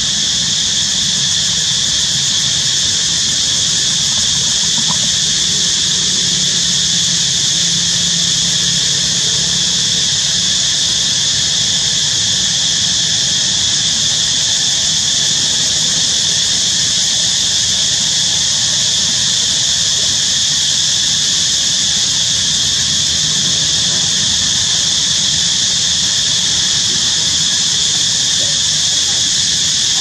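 Loud, steady, high-pitched insect chorus droning without a break.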